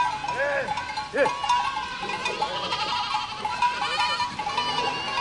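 A herd of goats bleating, with many short calls overlapping one another.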